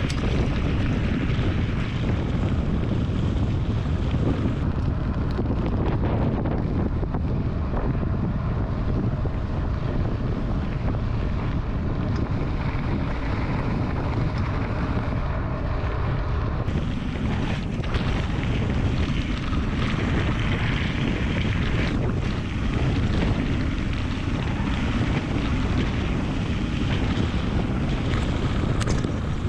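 Steady wind buffeting a bike-mounted action camera's microphone while a mountain bike rolls along a gravel dirt road, with the low rumble of the tyres on the gravel.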